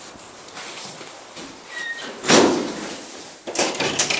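A glass-paneled entrance door banging shut a little over two seconds in, then a quick run of knocks near the end: footsteps on a tiled floor.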